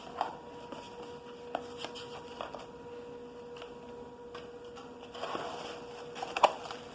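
Handling of a camcorder's box and packaged accessories: scattered light clicks and taps, a brief rustle about five seconds in, and a sharper click near the end, over a faint steady hum.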